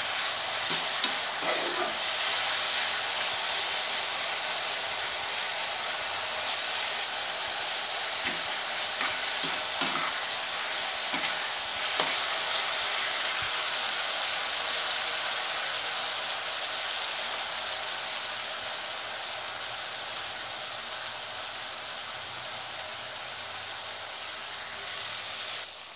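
Elephant apple pickle sizzling in oil in a non-stick frying pan while a spatula stirs and scrapes through it. The sizzle eases off gradually in the second half.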